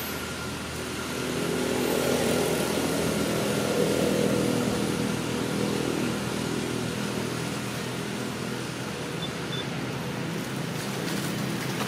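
An engine running with a steady hum, getting a little louder about two seconds in and easing off again after about five seconds.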